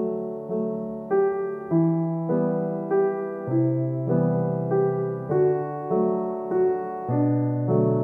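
Background piano music: a gentle melody with notes struck at an even, unhurried pace.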